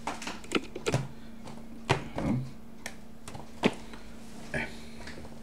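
Acoustic guitar being handled and set in position: a scattering of short clicks and knocks, some with a dull thud from the guitar body, over a faint steady hum.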